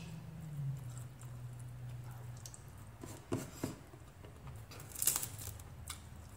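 Fingers picking apart grilled milkfish make a few soft clicks and crackles, with a cluster about five seconds in, over a low hum.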